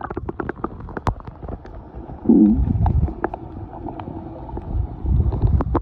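Sound picked up by a phone's microphone held under the sea surface: a dull, muffled rumble of water with many sharp clicks and crackles. About two seconds in there is a short muffled pitched sound, the loudest part.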